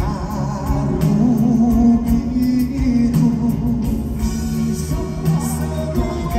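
Live Malay pop song played through an arena's loudspeakers and recorded from the audience: a singer's voice carries over the band's accompaniment.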